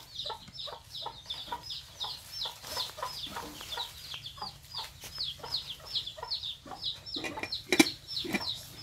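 Chickens calling: a steady run of high, falling chirps at about four a second over scattered lower clucks, with one sharp knock near the end.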